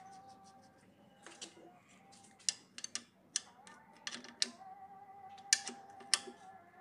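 Sharp metallic clicks and taps, a handful irregularly spaced, as a steel socket is fitted onto the drain plug of a Maruti Omni's rear differential housing to tighten it. A faint steady high tone runs underneath.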